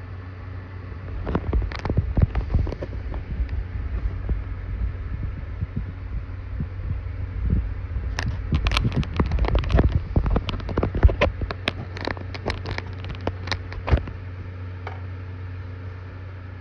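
A computer's steady low hum, overlaid with irregular clicking and crackling that starts about a second in, grows busier in the second half and stops a couple of seconds before the end.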